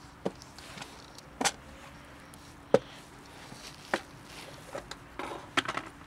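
Clip-lid plastic food tub being opened: a few sharp plastic clicks a second or so apart as its latches are unsnapped, then a quick cluster of knocks and rattles near the end as the lid comes off the tub of dry cat food.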